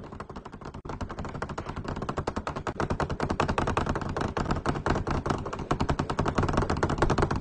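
Rapid, continuous rattling of a school desk and bench shaken by a trembling student's legs, a fast clatter that grows louder.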